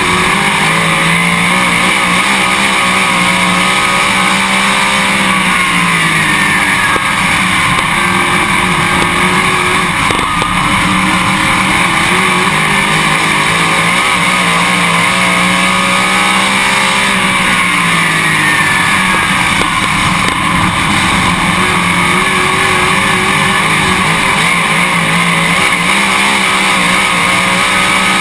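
Late model race car's V8 engine running hard under racing load, heard onboard over heavy wind and tyre noise. Its pitch dips and climbs again several times as the car lifts for the turns and accelerates down the straights.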